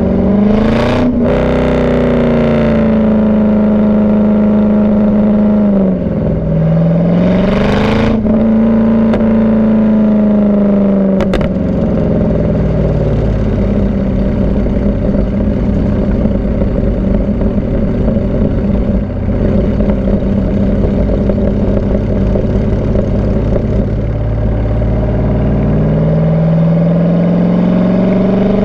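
C5 Corvette's LS-series V8 running through a Borla cat-back exhaust with the catalytic converters removed from the factory mid pipe. The engine note climbs with revs about a second in and again around eight seconds in, holds a steady tone through the middle, then drops and climbs again near the end.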